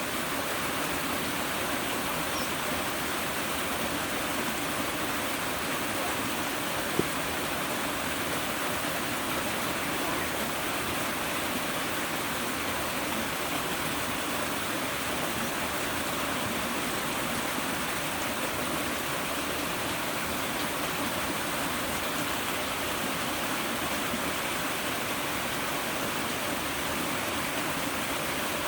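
River water rushing steadily. A single sharp click about seven seconds in.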